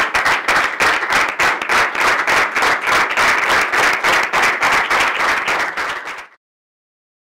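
Audience applauding, a dense steady clatter of many hands clapping that cuts off suddenly about six seconds in.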